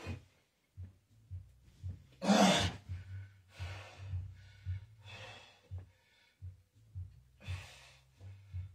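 A man breathing hard while doing dumbbell bench presses. There is a loud voiced grunting exhale about two seconds in, then several sharp, breathy exhales a second or two apart, one with each rep.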